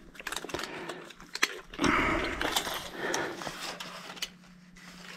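Plastic flexible conduit and a steel tape measure being handled, making scattered small clicks and short rubbing, scraping noises as the tape is run along the tubing.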